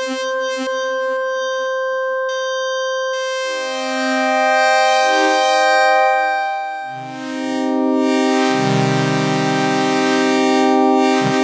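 Serum wavetable synth pad playing sustained chords, with delay and reverb. Its tone morphs as an LFO sweeps the wavetable position through four frames: a quick flutter at first, then slow sweeps as the LFO rate is turned down. New, lower chords come in a few times.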